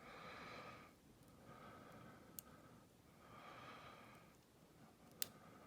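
Quiet, slow breathing close to the microphone, three breaths, with two faint sharp clicks from the lock pick and tension wrench working in a padlock's keyway.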